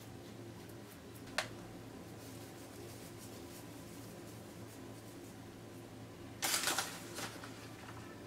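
Kitchen handling sounds as okonomiyaki is topped with katsuobushi (dried bonito flakes): one sharp click about a second and a half in, then a brief crinkling rustle about six and a half seconds in, over a faint steady hum.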